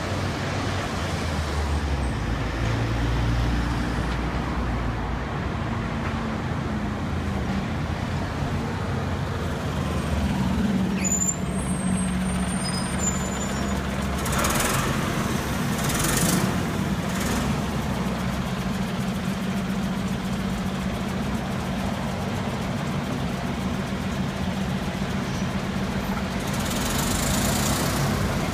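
Scania N94UB city bus with a Castrosua Versus body: its diesel engine runs steadily as the bus passes close by and pulls away. Several short air-brake hisses come midway and again near the end.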